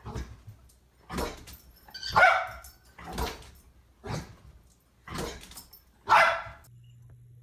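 A dog barking seven times at an even pace of about one bark a second, the third and last barks the loudest.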